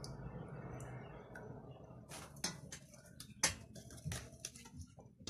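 Milk sloshing faintly in a steel pot as it is ladled. About two seconds in, a scattering of light clicks and taps starts as a güllaç pastry sheet is handled in the milk.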